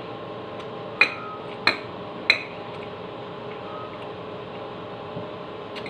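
A metal spoon clinks sharply against a bowl three times in quick succession about a second in, while scooping rice, over a steady background hum.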